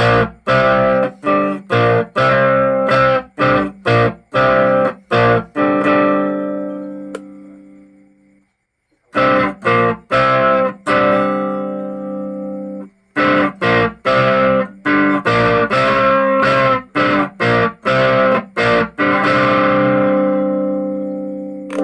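Electric guitar played through an amplifier set to overdrive from the amp itself, a tone test: chords struck in quick rhythmic stabs, each phrase ending on a long chord left to ring and fade. The playing breaks off twice briefly, leaving three phrases.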